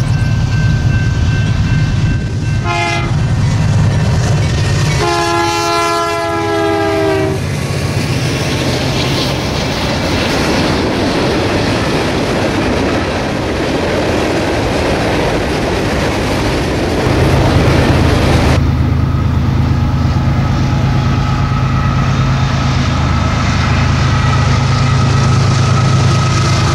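Freight train's diesel locomotives running as they approach, with a multi-note air horn giving a short blast about three seconds in and a longer one about five seconds in. Then the steady rumble of hopper cars rolling over the rails, and near the end the steady drone of diesel locomotives passing again.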